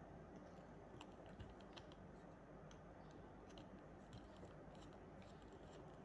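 Faint, scattered small clicks and ticks of a screwdriver turning a screw in a limit switch's metal housing, over a steady low hum.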